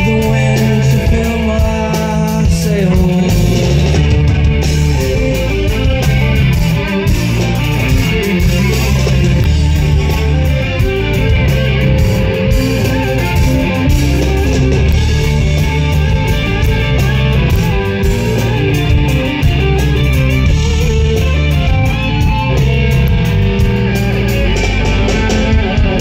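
A rock band playing loud and live: electric guitars and bass with drums, a full band mix.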